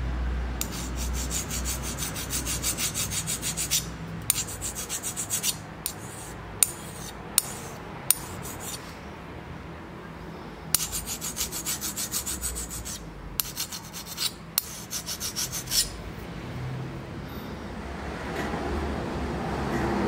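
A hardness-test file (a Tsubosan HRC65 file) scraped in quick back-and-forth strokes across the edge of a hardened 80CRV2 high-carbon steel knife blade, as a file test of the blade's hardness. There are several runs of rapid rasping strokes, with a few single sharp ticks of metal on metal between them, over a steady low hum.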